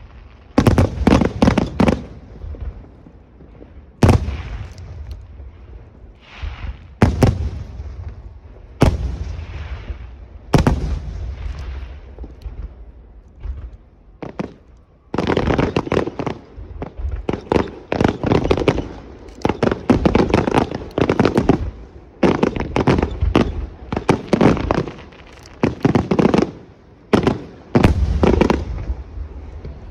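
Aerial fireworks shells bursting: sharp bangs, each trailed by crackling. A few seconds apart at first, then near-continuous volleys from about halfway through.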